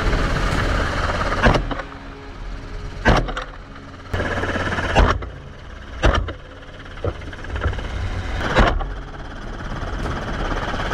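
Helicopter engine and rotor running steadily, with about six sharp gunshots fired from it one to two seconds apart.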